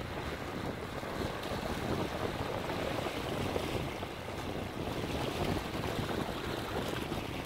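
Sea waves washing in among the large stones of a rock breakwater: a steady rushing surf that swells and eases a little.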